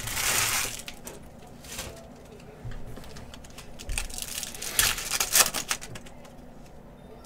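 Trading-card pack wrapper being torn open and crinkled by hand, in short bursts: a longer one at the start, a brief one between, and a cluster about five seconds in.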